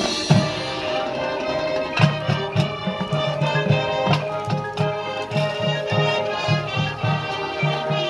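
High school marching band playing its field show music: sustained wind parts over a steady low beat of about three to four pulses a second that comes in about two seconds in.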